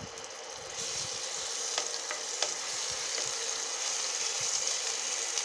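Ginger-garlic paste sizzling in hot oil in a nonstick kadai, the sizzle swelling about a second in and then holding steady, with a few light clicks of the steel spoon against the pan.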